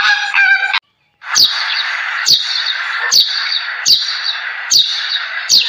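Flamingos honking briefly, then after a short break a dense chorus of sparrows chirping, with a loud sharp chirp about once a second.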